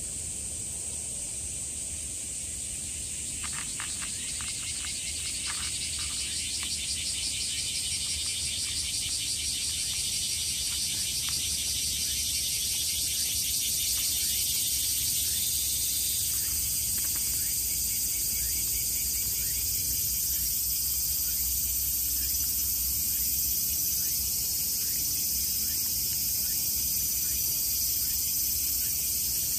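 Dense chorus of insects: a high, finely pulsing drone that grows louder over the first half, then holds steady. A few faint clicks sound about four to seven seconds in.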